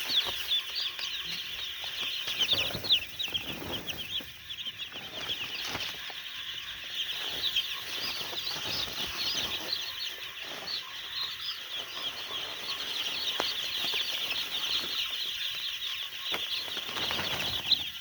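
A flock of two-day-old broiler chicks peeping continuously: a dense chorus of many short, high chirps overlapping, with a few brief bursts of low rustling.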